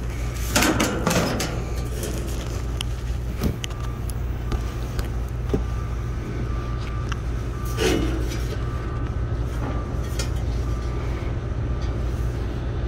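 Steady low rumble, with a few light clicks and taps of the metal fan blade hub being worked onto the condenser fan motor's shaft.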